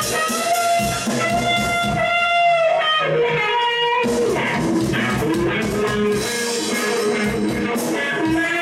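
Funky blues jam: electric guitar playing held, bending lead notes over a drum beat.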